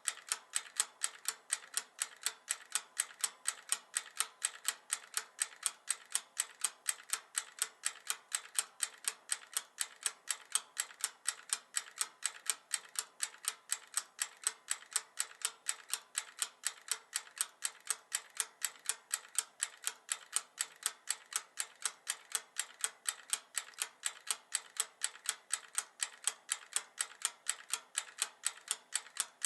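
Mechanical wind-up timer ticking: a quick, even run of sharp ticks that never varies in pace.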